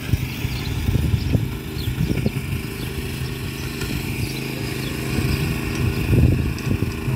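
Small water-pump engine on a homemade mini tractor running steadily under load while pulling a harrow, getting somewhat louder as it approaches about six seconds in.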